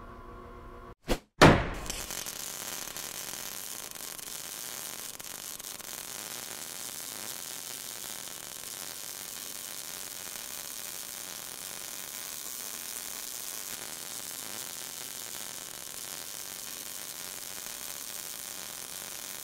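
Two sharp cracks a little over a second in, then a steady, even sizzling crackle like an electric welding arc, an arc-welding sound effect under the outro.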